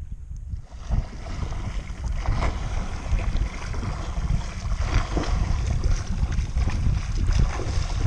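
Choppy sea water sloshing and splashing close to the microphone, with wind buffeting it; the noise fills in about a second in and carries irregular splashy bursts.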